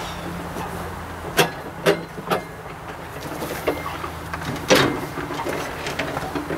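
Sharp knocks and clanks of tractor parts being handled during hood and wiring refitting: three quick hits in the first half and a louder one about three-quarters through, over a steady low hum.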